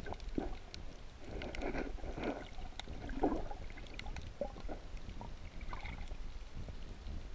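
Underwater sound from a camera held below the surface: a steady low rumble of moving water, with irregular muffled sloshes and small clicks.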